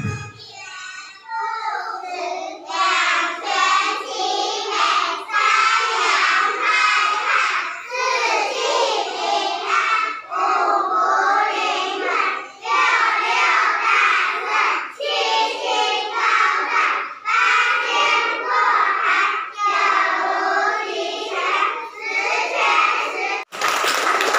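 A group of young children singing a song together in phrases about a second long. It ends abruptly near the end, giving way to clapping.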